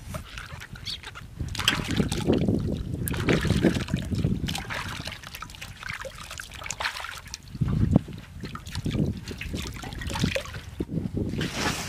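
Water splashing and sloshing in a metal basin as tomatoes are washed by hand, with water poured from a plastic jug trickling into the basin. The splashes come in irregular bursts.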